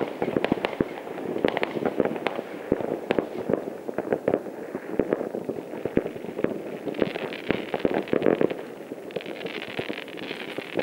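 Distant fireworks going off across a town: a dense, irregular rattle of bangs and pops, several a second, with stretches of higher crackling in the second half.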